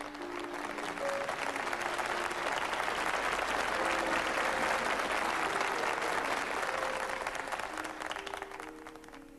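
Audience applauding, swelling to a peak midway and dying away near the end, over light background music.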